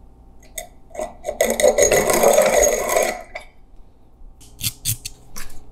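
Hand-cranked piston ring filer grinding the end of a piston ring for about two seconds with a loud, rough rasp, opening up the ring's end gap. Light clicks come before and after as the ring is set against the wheel and lifted away.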